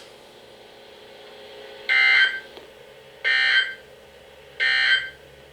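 Emergency Alert System end-of-message signal: three short bursts of SAME digital data tones, evenly spaced about a second and a half apart, marking the end of the alert.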